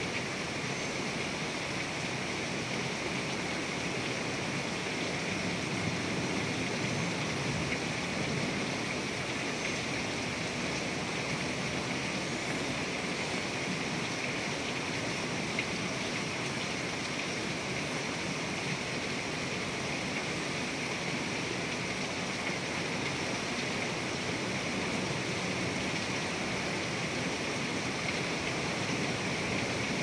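Heavy thunderstorm rain pouring down steadily, an even unbroken hiss with no thunderclap.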